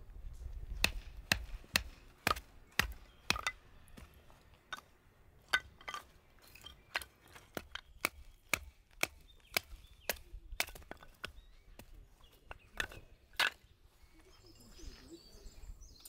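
Firewood cracking and knocking: a run of sharp wooden cracks of uneven loudness, about two a second at first, then more spread out.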